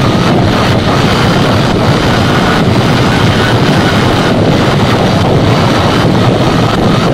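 Steady road and wind noise from a vehicle travelling at about 50 km/h, with wind on the microphone and a faint steady whine underneath.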